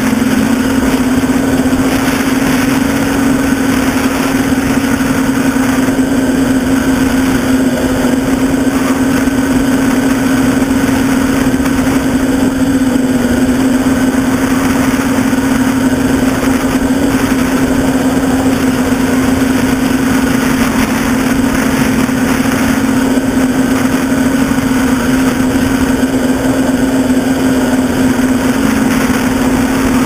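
NL-650 quadcopter's motors and propellers heard up close from a camera on its own frame: a steady, loud buzzing hum with a strong low tone over airy hiss, its pitch shifting slightly as the throttle changes.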